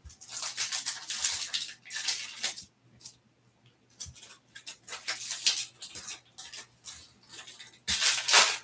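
Foil wrapper of a Topps Stadium Club Chrome trading-card pack crinkling in the hands, in bursts with a short pause about three seconds in. It is loudest near the end, as the pack is pulled open.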